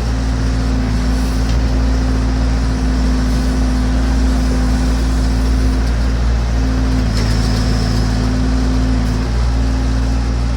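Massey Ferguson BX 50 backhoe's engine running steadily, its note briefly changing a few times.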